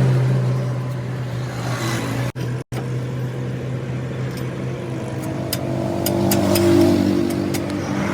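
A vehicle engine running with a steady low hum, which drops out twice briefly a little over two seconds in; a few faint clicks come in the second half.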